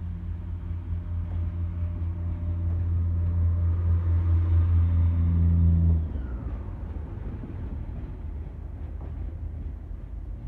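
Class 142 Pacer diesel multiple unit pulling away, its underfloor diesel engine running under power and getting louder as the train passes close by. About six seconds in the engine sound drops off sharply as it goes past, leaving the lower rumble of the train moving away.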